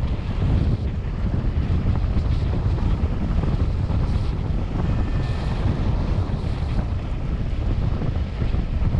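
Airflow buffeting the microphone of a camera carried by a paraglider pilot in flight: a steady, loud rush of wind noise, heaviest in the low end.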